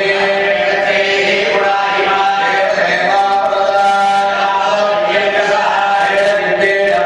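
A group of Hindu priests chanting mantras together, a steady recitation in long held tones with no breaks.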